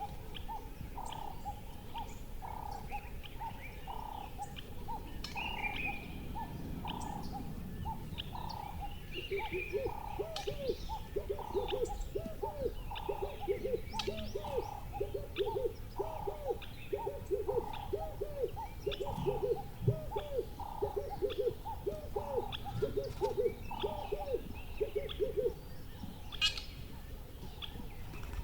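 Birds calling: a steady series of low hooting notes about twice a second, joined about a third of the way in by a faster run of lower, rising-and-falling notes. Both stop shortly before the end, over scattered short high chirps and a low background rumble.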